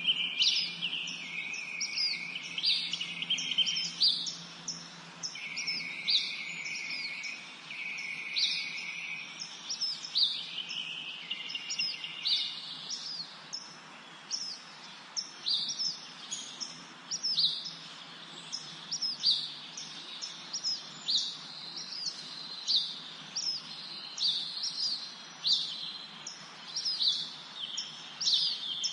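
Several songbirds chirping in a forest: quick, high, downward-sweeping chirps repeat over and over, and for the first ten seconds or so a longer, lower trilling song runs beneath them.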